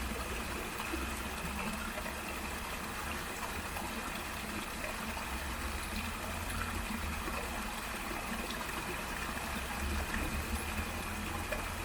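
Small waterfall and stream of water babbling steadily over rocks: an even, unbroken rush.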